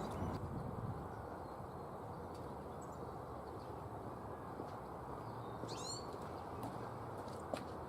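Outdoor ambience: a steady rushing background with birds chirping, including a quick run of chirps about six seconds in, and a few faint clicks near the end.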